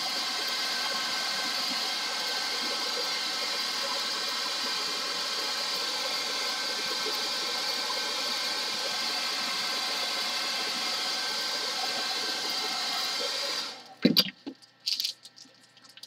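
VS Sassoon hairdryer running steadily, a motor whine under the rush of air, switched off about 14 seconds in; a few brief clicks follow.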